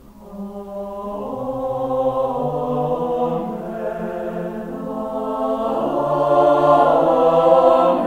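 University choir singing slow, sustained chords. It comes in softly after a brief break in the phrase and swells louder toward the end.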